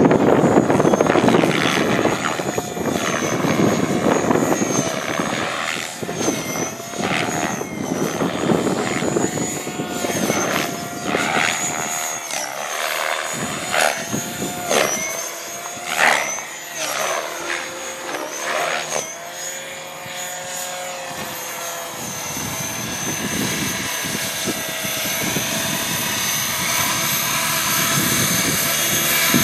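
HK600 radio-controlled helicopter flying aerobatics: its rotor and motor whine swoops up and down in pitch again and again with the manoeuvres. Over the last several seconds the whine settles to a steady pitch as it comes down low to land. Wind rumbles on the microphone, mostly at the start and near the end.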